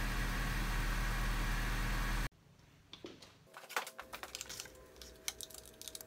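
2004 Honda Civic's D17 four-cylinder engine idling with a cylinder-3 misfire (code P0303), heard from inside the cabin. It cuts off abruptly a little over two seconds in, and faint scattered clicks and taps follow as hands handle the plastic ignition coil packs on top of the engine.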